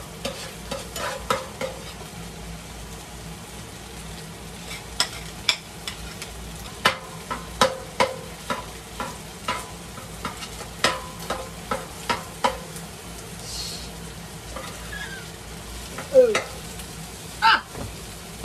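A metal spatula scraping and knocking against an electric grill pan as rice, meat and vegetables are stirred and fried, with steady sizzling underneath. The scrapes and clicks come at an irregular pace, with a louder scrape a little before the end.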